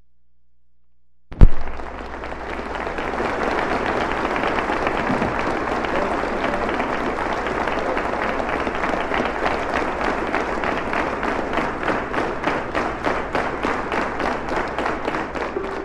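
Live concert audience applauding, starting with a sudden loud thump about a second and a half in. Toward the end a regular beat of sharp taps comes through the clapping as the jazz trio is about to start playing.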